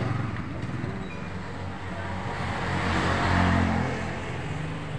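A motor vehicle passing on the road, its engine and tyre noise growing louder to a peak about three seconds in, then fading.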